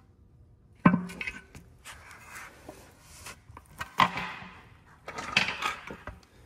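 Metal parts clattering as they are handled and set down: a sharp knock about a second in, then scattered lighter clicks and knocks, with another knock in the middle and a cluster near the end.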